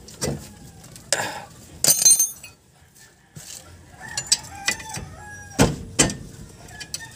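Hand tools clinking against the steel front wheel hub and hub nut of a Suzuki Multicab as pliers and a wrench work the nut loose to get at the spindle bearing. Scattered sharp metallic clinks, a bright cluster about two seconds in, a short lull, then more clicks and two hard knocks near the end.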